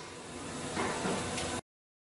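Workshop noise of a CNC press brake bending sheet metal: a steady hiss that swells again about a second in, then cuts off suddenly.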